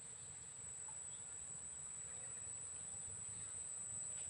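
Insects trilling in a steady, high-pitched continuous drone, with a faint low rumble underneath.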